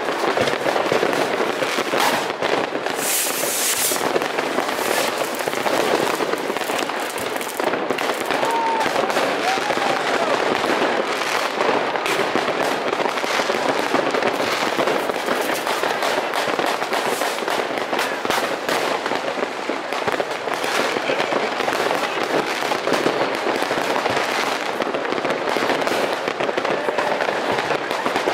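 New Year's Eve fireworks: many rockets and firecrackers going off at once, their bangs and crackles overlapping in a continuous barrage with no pauses. A brief high hiss comes about three seconds in.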